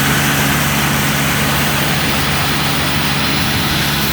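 Small Kubota rice combine harvester's engine running steadily with a constant mechanical hiss, slightly fading near the end as it moves off.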